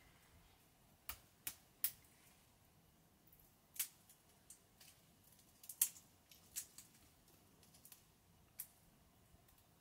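About a dozen sharp, crisp clicks and snaps at uneven intervals over a quiet background.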